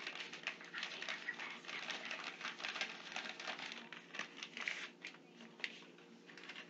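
Close rustling and handling noises: a dense run of small crackles and taps.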